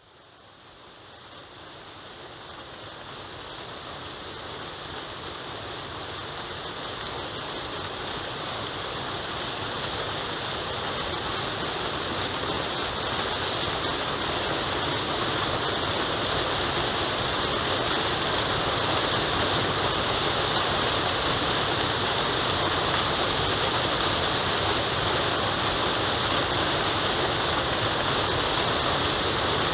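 Steady rush of water falling at a waterfall, fading in gradually from near silence over the first fifteen seconds and then holding level.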